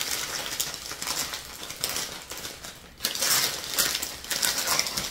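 Wrapping paper crinkling and rustling as a gift is unwrapped by hand, with a brief lull about three seconds in before it gets louder again.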